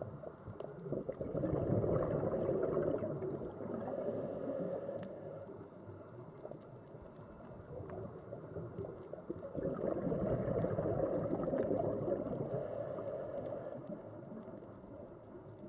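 Scuba diver breathing through a regulator underwater: two long bubbling exhalations, each with a short high hiss near its end.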